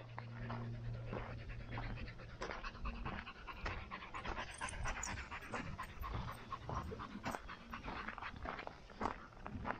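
Rapid, heavy panting breaths over quick, uneven footfalls while running.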